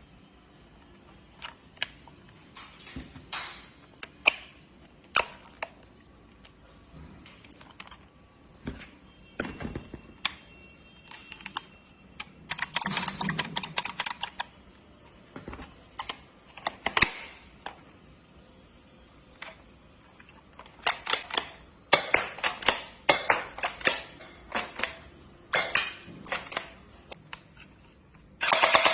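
Plastic parts of a toy Glock 18 gel blaster being handled and clicked together: scattered sharp clicks and short rattles, busier near the middle and toward the end.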